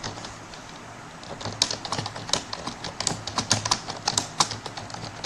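Computer keyboard being typed on at a steady touch-typing pace, quick irregular key clicks several a second, after a short pause at the start.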